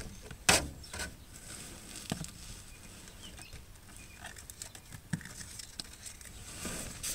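Hands rummaging behind a vehicle seat. A sharp knock comes about half a second in, then scattered light taps and rustles as items are moved about.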